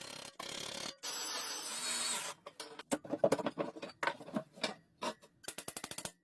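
Workshop handling sounds from restoring a rusty lawn mower: a steady hiss, then a string of sharp clicks and knocks of tools and metal parts, with a quick run of even clicks near the end.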